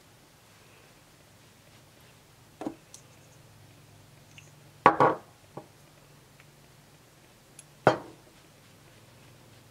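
A few short knocks and clicks of small hard makeup items (brush handle, bottles) set down and handled on a table. The loudest is a quick double knock about halfway through, with a faint steady hum between them.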